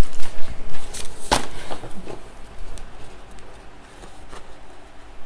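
Handling noise at a diamond painting work table: a few sharp clicks and taps in the first second and a half, then faint rustling.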